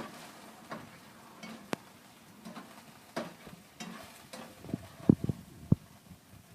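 Utensil stirring garlic and oyster sauce in a frying pan: irregular clicks and taps of the utensil against the pan over a faint sizzle.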